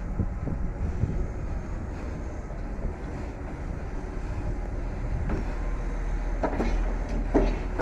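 Wind buffeting the microphone over a steady low rumble, with two short sharp sounds near the end.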